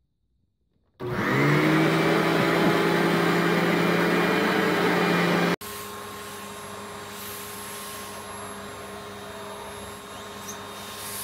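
A vacuum cleaner switches on about a second in; its motor whines up in pitch, then runs loud and steady before stopping abruptly about halfway. A Samsung canister vacuum then runs steadily and more quietly.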